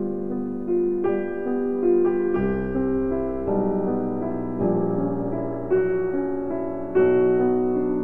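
Background piano music: a slow melody of held notes and chords, a new note about every second, with deeper bass notes coming in every two seconds or so.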